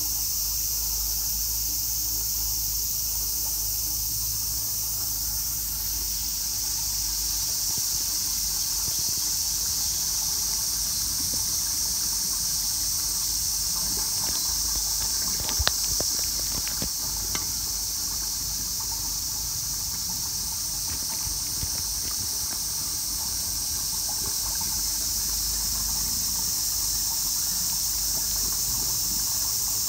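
A steady, high insect chorus that swells and eases slowly, typical of summer cicadas. A few sharp clicks come about halfway through.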